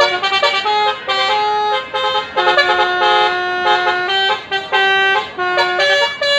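Bus telolet horns playing a melody in quick stepped notes, with one long held note in the middle.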